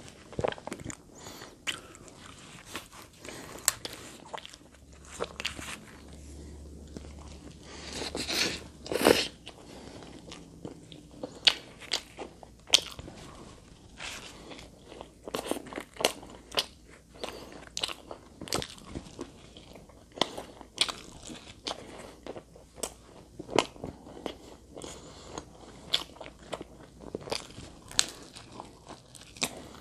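Close-miked eating of chicken pizza: crisp crust biting and crunching in many short, sharp crackles between chewing, with the densest, loudest crunching a little under ten seconds in.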